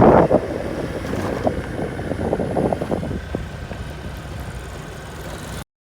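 Motor scooter running along with wind buffeting the microphone, slowly fading and then cutting off suddenly near the end.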